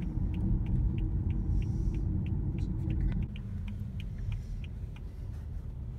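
Low road rumble inside a moving car's cabin, with a turn signal ticking about three times a second. The rumble eases about three seconds in.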